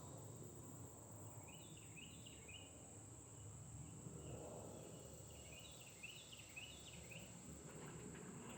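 Quiet outdoor ambience: a distant songbird sings two short series of quick descending chirps, one about a second and a half in and another near the middle to end, over a steady, thin, high-pitched insect drone.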